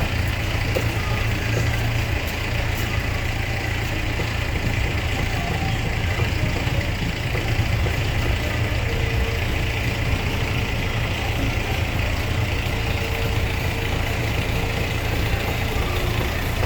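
Steady low engine rumble, like an idling motor, under general outdoor street noise.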